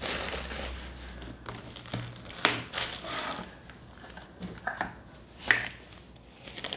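Plastic zip bags crinkling as they are handled and moved about on a desk, with a few sharp taps, the loudest about two and a half and five and a half seconds in.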